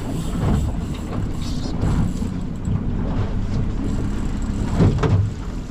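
Steady low rumble of a small boat at sea, with wind and water noise around the hull and faint voices, briefly louder near the end.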